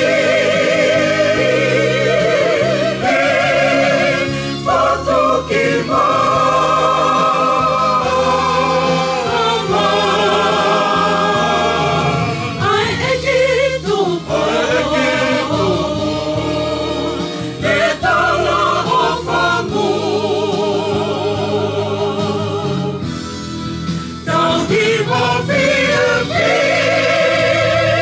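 Tongan mixed choir of men and women singing a hymn in parts, the voices held with a strong vibrato, pausing briefly between phrases.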